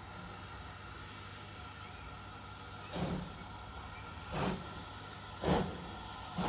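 Heritage railway locomotive running steadily, with four short, louder bursts about a second apart from about three seconds in.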